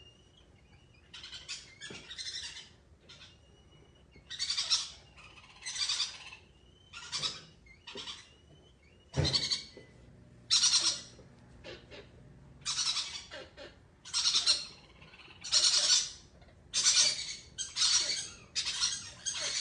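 Monkey calls: a series of short, high, raspy calls, roughly one a second, with a few thin whistles in the first few seconds.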